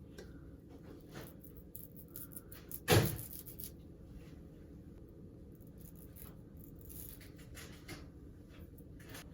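Light scraping strokes of a razor trimming wig lace, with one sharp knock about three seconds in.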